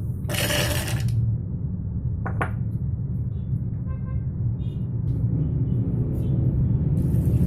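Kitchen utensils and dishes clinking, with a short ringing chime of metal or glass about four seconds in, over a steady low rumble.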